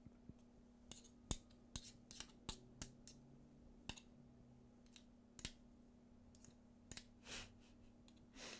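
Faint, irregular clicks and light scrapes of a metal spoon against a hand-mixer beater as batter is cleaned off it, with a faint steady hum underneath.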